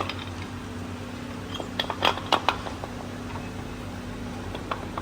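Steady low machine hum with a cluster of short, sharp clicks about two seconds in and a couple more near the end.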